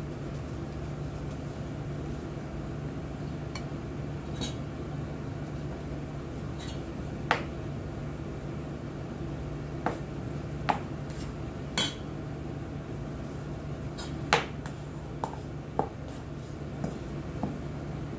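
Scattered light clinks of dishes and a stainless steel bowl, about ten in all from partway in to near the end, as sushi rice is scooped from the bowl and shaped by gloved hands, over a steady low hum.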